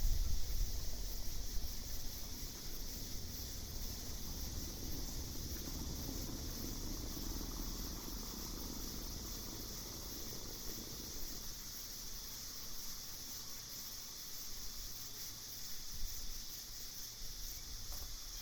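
Night ambience: crickets chirping steadily in a high, unbroken band, over a low rumble that is stronger in the first couple of seconds and then eases off.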